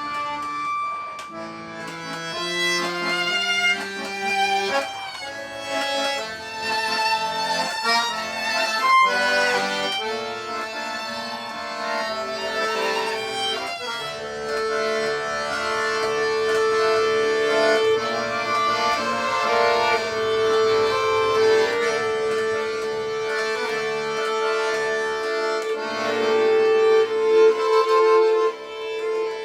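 Instrumental folk music from accordion and violin: a run of quick melody notes, then a long held note from about halfway, with the music falling away right at the end.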